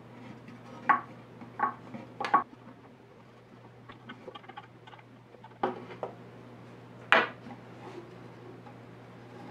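Metal clinks and knocks from a hand tool and bolts inside an acoustic guitar body as the neck is bolted on through the soundhole: about six sharp hits with lighter ticking between them. A steady low hum runs underneath.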